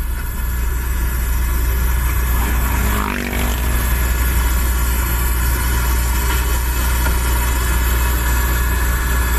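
Steady low engine and road rumble heard inside a moving car's cabin, with a brief pitched sound about three seconds in.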